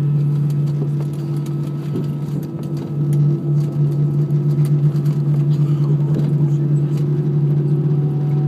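Cabin noise of an Airbus A320 on its landing roll with the ground spoilers deployed: a loud, steady low drone of engines and rushing air. About three seconds in it grows louder and takes on a quick pulsing rumble.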